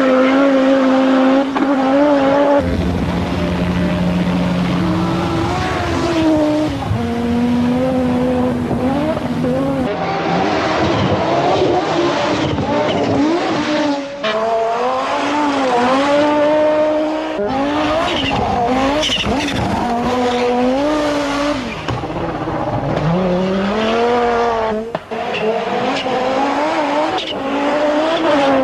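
Audi Sport quattro S1's turbocharged five-cylinder engine at racing pace, its revs repeatedly climbing, dropping and breaking off through gear changes and lifts. The sound changes abruptly about 3 and 10 seconds in, where separate recordings are cut together.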